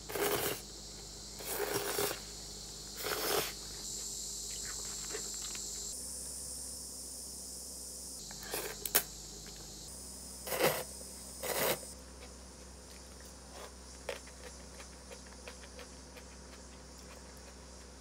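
Chopsticks tossing sauce-coated seaweed noodles in a ceramic bowl: a handful of short, wet, squishing strokes with a sharp click of a chopstick against the bowl, over a steady hiss. In the later part, only a few faint ticks.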